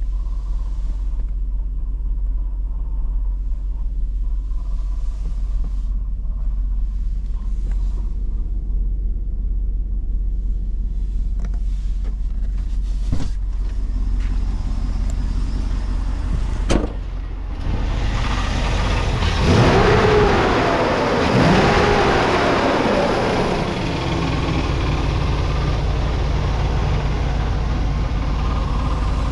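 2009 Chevrolet 3500HD pickup engine idling steadily, with a couple of sharp clicks, then revved up twice briefly about twenty seconds in before settling back to idle.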